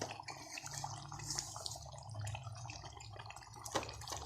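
Chicken cooking in its masala and liquid in a pot, bubbling with scattered small pops and clicks over a steady low hum.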